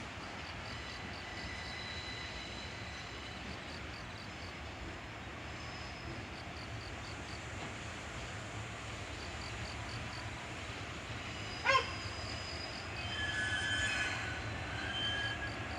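A freight train rolling past with a steady running noise and a regular light clicking. There is one sharp clank about twelve seconds in, then high-pitched squealing from the wheels near the end.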